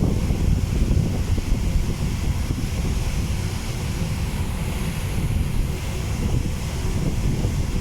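Strong wind buffeting the microphone: a loud, irregular, gusting rumble.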